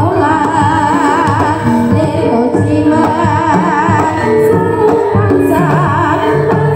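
Javanese gamelan playing dance accompaniment: steady ringing metallophone tones and low drum beats, with a woman singing a wavering line with vibrato over them.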